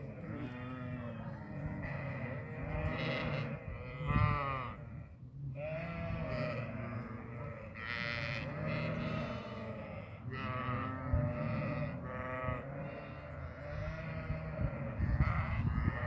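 A flock of sheep and lambs bleating almost without a break, many calls overlapping, some high-pitched and some deep.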